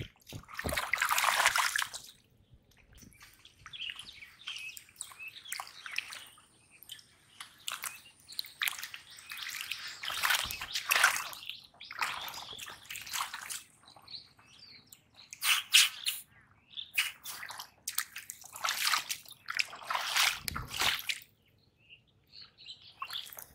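Shallow muddy water splashing and sloshing in irregular bursts as someone wades and gropes through it with his hands for fish.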